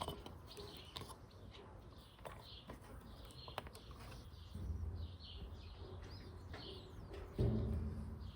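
Small birds chirping repeatedly in the background, with scattered light clicks and knocks. From about four and a half seconds in, a low rumble starts and gets louder near the end.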